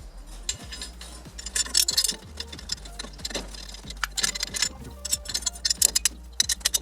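Light metallic clicking and clinking of hand tools and bolts as a homemade holding tool is bolted onto a rear axle's pinion flange. Short clicks come in irregular clusters, busiest about two seconds in and again from four to six and a half seconds.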